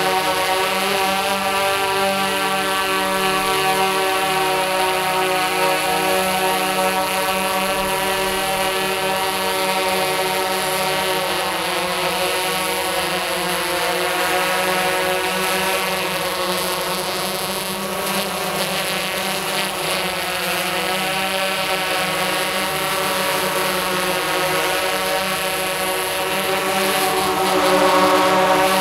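Tarot X8 coaxial octocopter's eight electric motors and DJI 1552 propellers humming in flight, the pitch wavering as the motor speeds shift while it manoeuvres. It grows louder near the end.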